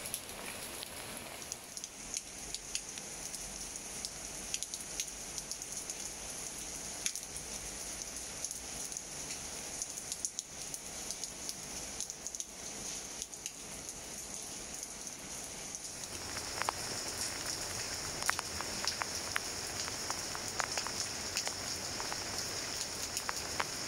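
Steady rain falling on leaves and plants, a continuous hiss with many separate drops ticking. About two-thirds of the way through the rain grows heavier and louder, with more distinct drop hits.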